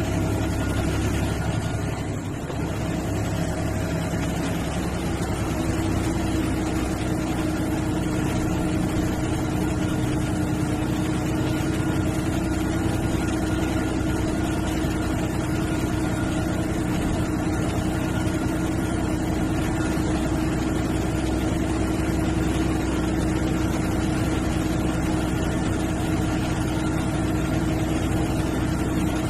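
MSRTC sleeper/seater bus's diesel engine running steadily with a constant drone, heard from inside the bus, dipping briefly about two seconds in.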